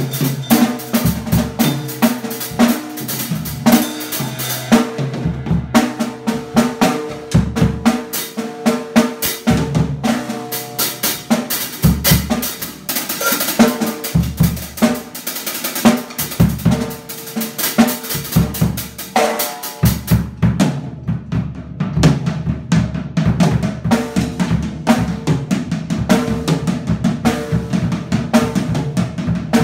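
Yamaha drum kit played continuously: bass drum, snare and cymbal strokes in a busy beat.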